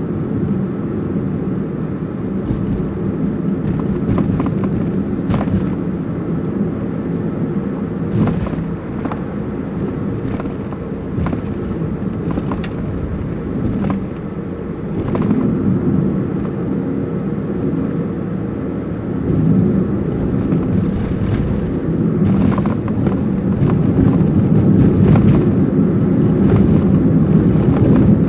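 Car driving along a city street: a steady low rumble of road and engine noise, with scattered brief clicks, getting a little louder in the last third.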